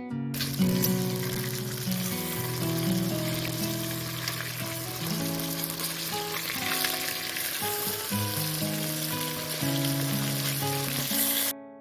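Food sizzling as it fries in hot oil, a dense steady hiss that cuts off suddenly near the end, under light background music.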